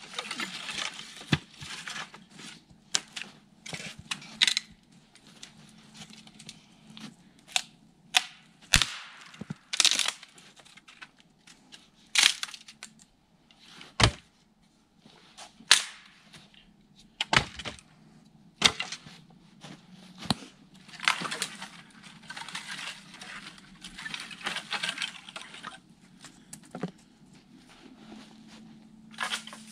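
Firewood branches snapping as they are broken by hand: a string of sharp cracks at irregular intervals, with rustling and crackling of twigs and brush between them.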